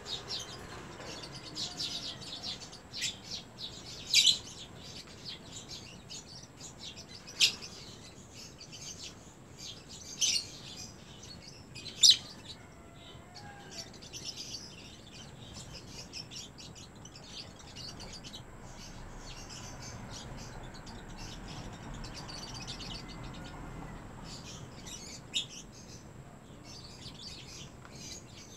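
Lovebirds chirping continuously in quick, high twitters, with a handful of louder, sharp calls standing out.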